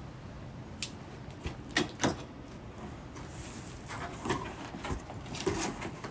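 A cardboard shipping box being handled and opened: a few sharp knocks and taps in the first half, then rustling and scraping of the box and its packing.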